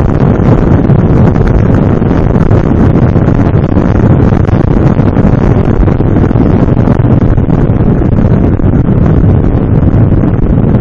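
Loud, steady wind buffeting on the microphone of a camera mounted on a moving motorcycle, with the bike's engine and road noise blended underneath.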